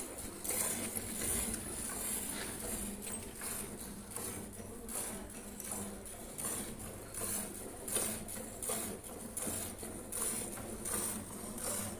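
A cow being milked by hand: milk squirting in short rhythmic jets, about two a second.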